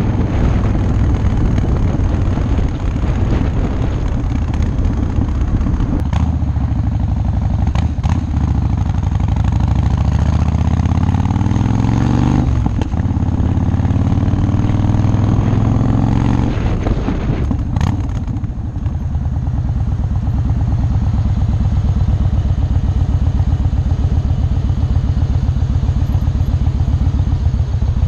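Motorcycle engine running under the rider, revved up twice in the middle with the pitch climbing each time, then settling to a steadier low run. A few sharp clicks sound along the way.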